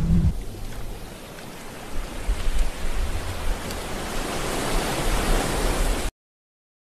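Sea surf washing on a beach shore, a steady rushing noise with uneven low buffeting of wind on the microphone; it cuts off suddenly about six seconds in.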